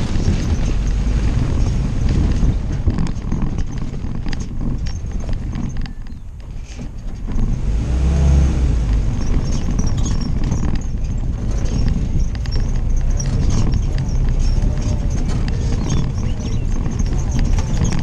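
Willys CJ-2A Jeep's four-cylinder flathead engine running as the Jeep drives over rough dirt and gravel, with steady rattling and knocking from the body over the bumps. It goes quieter for a moment about six seconds in, then pulls louder again.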